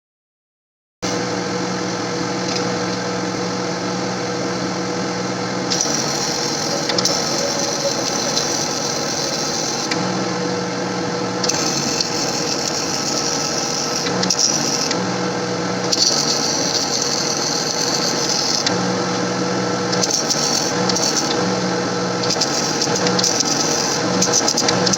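A small power tool or motor running continuously, starting about a second in, with its pitch shifting every few seconds.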